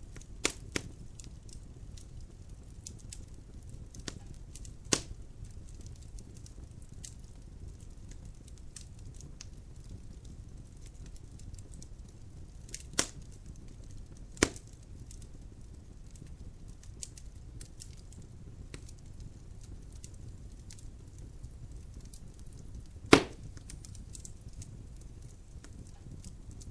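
Wood fire crackling in a fireplace: a steady low rumble of the flames with a handful of sharp snaps and pops from the burning logs, the loudest near the end.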